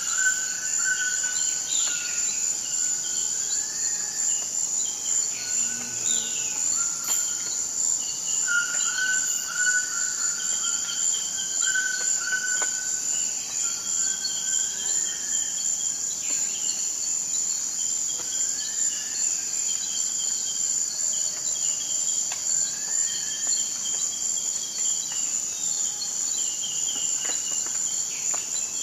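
Forest ambience: a steady, high-pitched drone of insects, with birds calling intermittently in short whistled notes over it.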